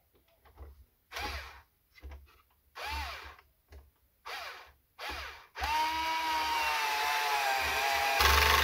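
Cordless electric screwdriver driving screws into the coffee maker's frame. Its motor whines in several short bursts that spin up and down, then runs for about three seconds as a screw goes in. The pitch sags slightly under load and the sound grows louder near the end.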